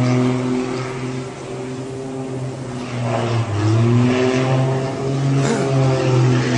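A small aircraft's engine droning at a steady pitch that sags and then climbs again about halfway through.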